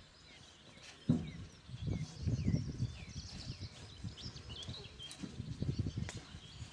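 Pigs grunting in low, rapidly pulsing bouts, with small birds chirping in the background and one sharp click about a second in.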